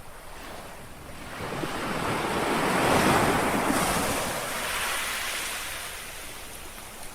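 A small sea wave lapping on the shore: a wash of surf that swells about a second in, peaks near the middle and fades away over a few seconds.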